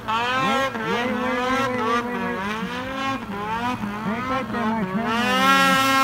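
Snowmobile engine revving up and down over and over as the sled works through deep snow, then holding a steadier, higher pitch near the end.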